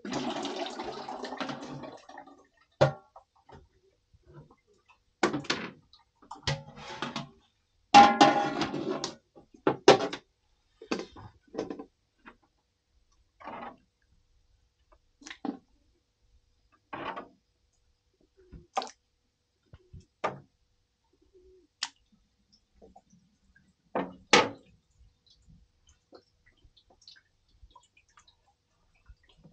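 Scattered knocks and clatter, irregular and a few seconds apart, with a brief rush of noise at the start and a louder cluster about eight seconds in.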